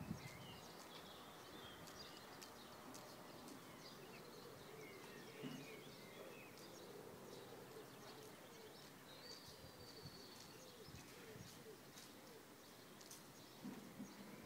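Near silence, with faint birdsong in the background. A few faint low thuds come near the end.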